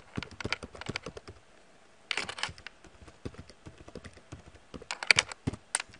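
Typing on a computer keyboard: a quick run of keystrokes, a short pause about a second and a half in, then more keys, with the loudest cluster of presses near the end.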